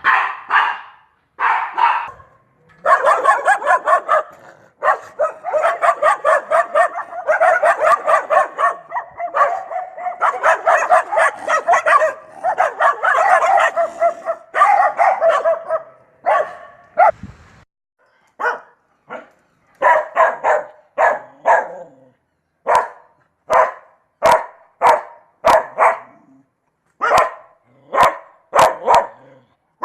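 Dog barking: a long run of rapid barks in quick succession, then from about halfway through separate barks spaced about a second apart.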